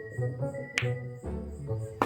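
Background music: a slow bass line under sustained pitched notes, with one sharp snap-like percussion hit.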